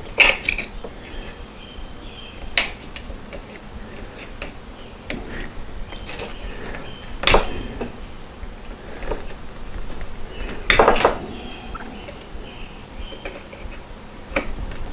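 Scattered metal clicks and clinks of hand tools on the steel pedal cluster while the accelerator pedal's cotter pin is worked out: four sharper clicks spread through, with lighter ticks between them.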